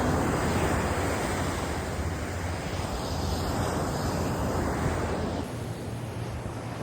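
Sea surf washing onto a beach, with wind buffeting the microphone; the wash eases off about five seconds in.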